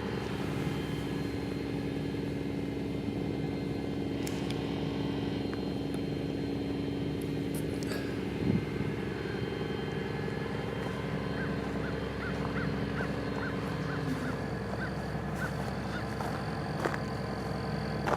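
Steady machine hum with several constant tones, one of which drops out about fourteen seconds in; a few faint short chirps in the second half.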